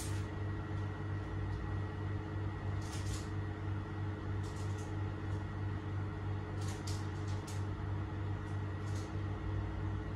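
Steady low mechanical hum, like a fan or appliance motor running, with a few faint light clicks scattered through it.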